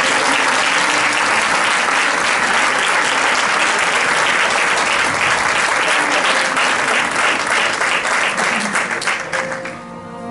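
Audience applauding: a long round of dense clapping that dies away near the end, with soft music underneath.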